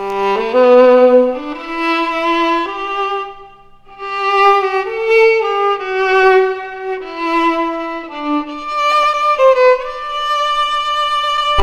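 Solo violin playing a melody of bowed notes, with a brief pause about a third of the way through.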